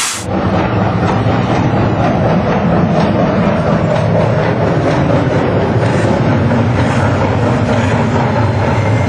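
Train running along the track, a steady low rumble with faint wheel clatter over the rails. It starts abruptly as a loud hiss of steam cuts off at the very start.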